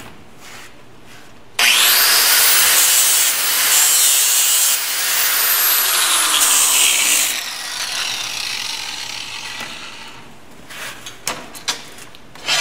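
A grinder starts about a second and a half in and grinds bare steel for about six seconds, buffing the mill scale off the bevel of a steel test plate so the weld will fuse. It then winds down, and a few light knocks follow near the end.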